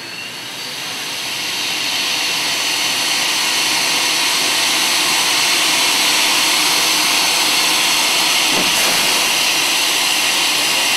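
Steam locomotive 3526, a New South Wales 35 class 4-6-0, letting off steam in a loud, steady hiss that builds over the first couple of seconds and then holds.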